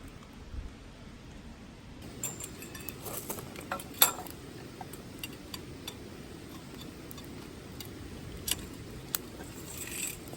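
Tableware clinking and clattering: scattered light taps and clicks, with one sharper clink about four seconds in.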